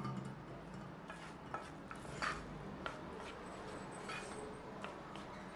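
Wooden spoon stirring cooked pearl couscous in a nonstick pot, with a few light, scattered knocks and scrapes of the spoon against the pot. The couscous has absorbed all its water and is being fluffed.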